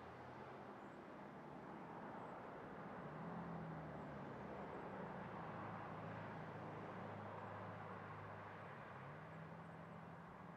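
A vehicle passing on the road: a faint low engine hum that shifts a little in pitch over a steady rush of tyre noise, swelling in the middle and easing off toward the end.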